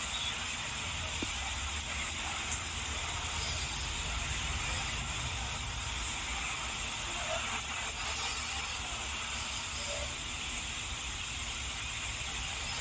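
Steady hiss over a low rumble, with a few faint, brief high chirps about a third of the way in and again past the middle.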